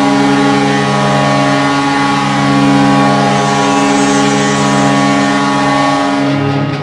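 Hockey arena goal horn: a loud, steady horn sounding a chord of several held tones, like a ship's horn. Near the end the horn drops away and rock music comes in.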